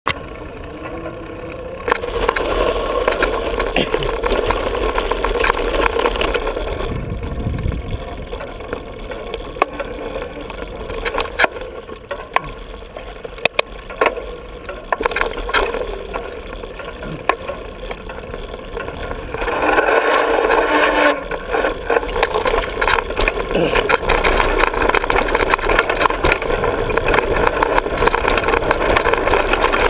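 Diamondback hardtail 29er mountain bike riding over a dirt trail: tyres crunching on dirt and gravel, with frequent sharp rattles and knocks from bumps and wind rumbling on the microphone. It is quieter for the first couple of seconds on pavement, then gets louder once on the trail.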